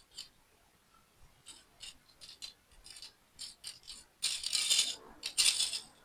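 Small plastic toy building pieces clicking and rattling as they are handled, with a run of separate clicks followed by two louder, longer rattles near the end, like loose parts shaken or poured.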